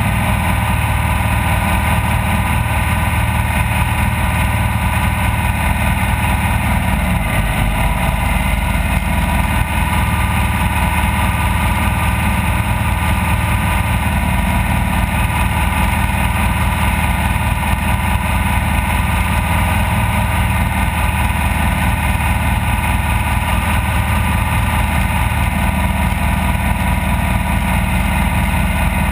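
Off-road race vehicle's engine running at a steady, even speed, its pitch dipping briefly about seven seconds in and then recovering.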